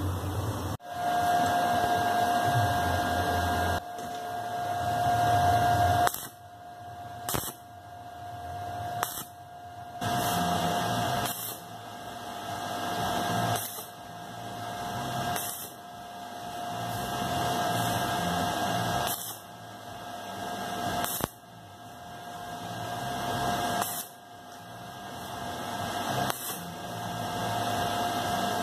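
Stick (arc) welding of small steel parts: the arc crackles and hisses over a steady whine, cutting off sharply and restarting every couple of seconds as short beads are laid.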